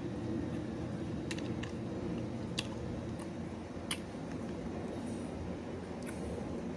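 A few sharp clicks and light crackles as a plastic condiment sachet is handled and squeezed onto a burger, over a steady low background hum.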